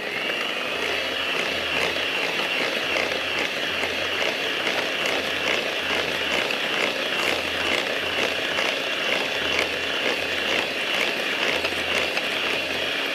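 Electric mixer beating a cake batter of butter, sugar, Lotus biscuit spread and eggs, its motor whine rising as it starts and then running steadily.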